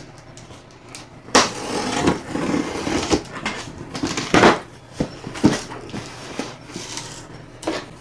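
Cardboard shipping box being opened by hand: scissors slitting the packing tape and the cardboard flaps being pulled apart, with rustling and scraping broken by several sharp tearing or knocking sounds, the loudest about four and a half seconds in.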